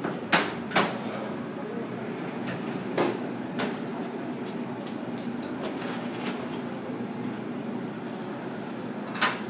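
Eatery background noise: a steady low hum and murmur, broken by a few sharp clicks and knocks of tableware, two close together near the start, another about three seconds in and one near the end.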